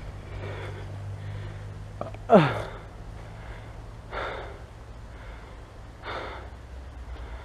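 A person breathing hard, with puffs of breath every couple of seconds. About two seconds in comes one loud vocal gasp that slides sharply down in pitch. A steady low hum runs underneath.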